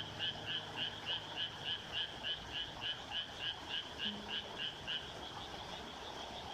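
Frog calling in a steady series of short croaks, about three a second, that stops about five seconds in.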